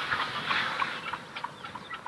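Birds calling outdoors: short, repeated chirps several times a second over a light background hiss.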